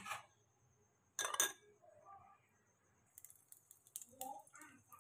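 A spoon clinks once against a ceramic bowl about a second in, then faint crackling of beaten egg frying in desi ghee on an iron tawa near the end.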